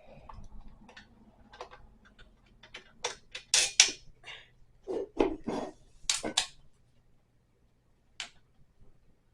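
Irregular clicks, knocks and rattles of flat-pack dresser parts and hardware being handled, with a cluster of sharper clacks in the middle and one fainter click near the end.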